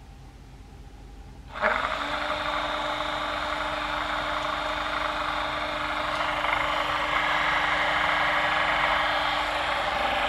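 A homemade DC motor built from screws starts suddenly about one and a half seconds in. It spins up within a moment and then runs with a steady whirring hum.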